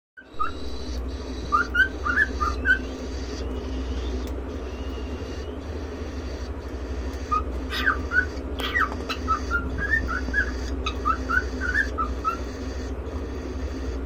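Cockatiel singing in short, quick whistled notes: a brief run about two seconds in, then a longer run from about seven to twelve seconds. A steady low hum runs underneath.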